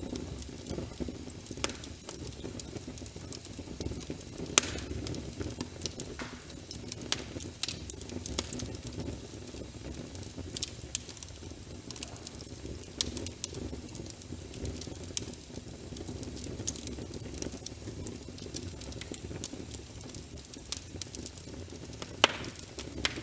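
Wood fire crackling in a fireplace, with frequent sharp pops (two louder ones, about four seconds in and near the end), over a steady patter of rain.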